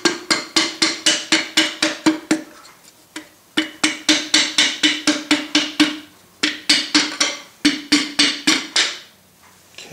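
A mallet taps rapidly on a wooden dowel held against a connecting rod in the bottom of a Mercedes M117 V8 block, about four knocks a second with a short hollow ring to each. The tapping comes in three runs, with brief pauses around three seconds in and six seconds in.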